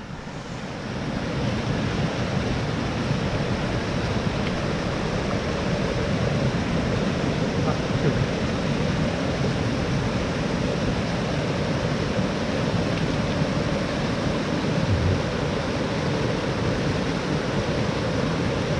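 Small mountain stream cascading over rocks: a steady rushing of water that grows louder over the first second or two, then holds.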